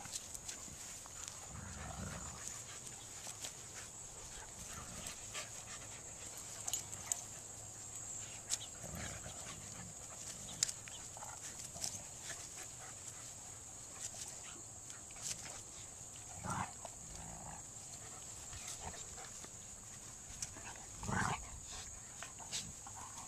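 Dogs at rough play, a golden retriever puppy wrestling with larger dogs: several short dog vocalisations, play growls and yips, a few seconds apart, with small scuffling clicks between them.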